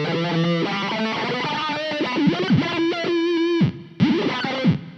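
Rivolta Mondata VIII electric guitar played through the RPS Effects Arcade Machine pedal, giving pitch-shifted, synth-like notes. The notes swoop in pitch like an envelope filter and wobble quickly, and the pedal's strong gate cuts them off abruptly, twice near the end.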